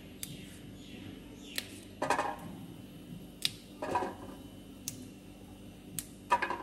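Kitchenware handled: a few sharp clicks and two louder short clattering knocks over a steady low hum.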